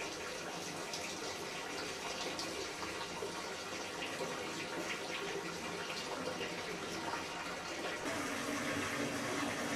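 Water running steadily from a wall tap in a small bathroom and splashing onto the floor; the flow grows a little louder and fuller about eight seconds in.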